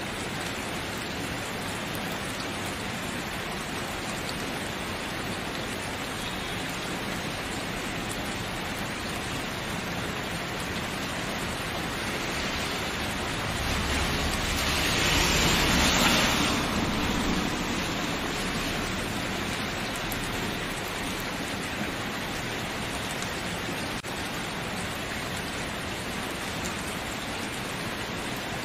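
Steady rainfall. About halfway through it swells louder for a few seconds, with some added low rumble, then settles back.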